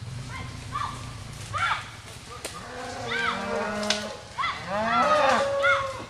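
Several cattle mooing and bawling, their calls overlapping at different pitches, rising to the loudest, most crowded calling about five seconds in.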